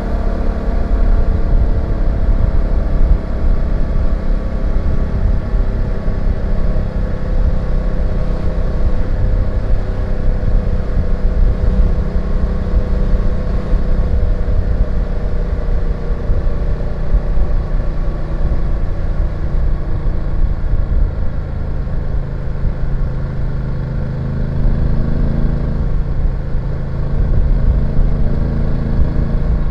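BMW F850GS parallel-twin engine running while the bike is ridden, its note drifting slowly lower partway through and then holding steady.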